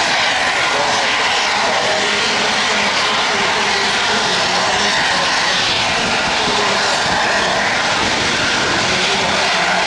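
Space Shuttle Main Engine (RS-25, liquid hydrogen and liquid oxygen rocket engine) firing on a test stand during a static test: a loud, steady, unbroken rush of exhaust noise.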